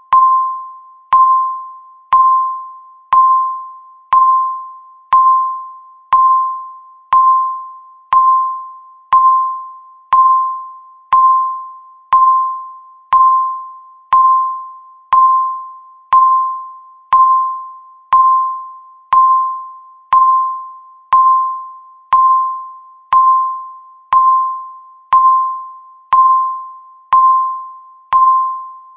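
Countdown timer beeping once every second: each beep is a single short tone that fades quickly, repeating evenly.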